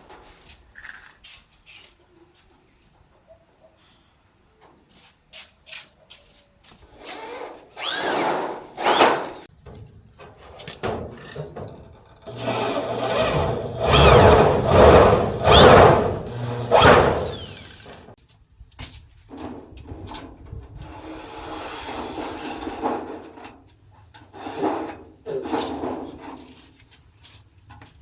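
Power tool running in short, irregular bursts, with scraping and rubbing on wood between them. It is loudest for several seconds about halfway through.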